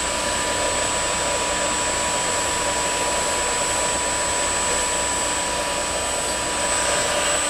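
Steady whir from a powered Delta VFD055E43A variable-frequency drive on test, with a constant thin high-pitched whine and a fainter steady hum mixed in.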